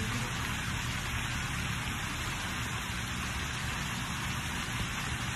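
Strong wind blowing steadily across the microphone, a constant rushing hiss with a low buffeting rumble underneath.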